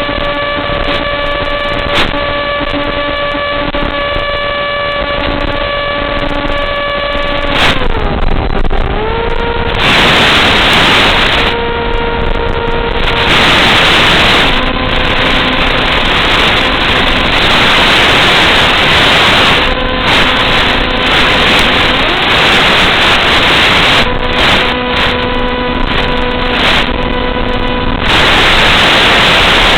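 Model airplane motor running with a steady hum, its pitch gliding down about eight seconds in as it throttles back. After that a loud hiss takes over, with faint steady tones coming and going.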